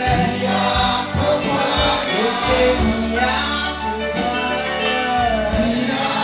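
Live gospel worship music: voices singing over electronic keyboards, with sustained bass notes and a steady beat.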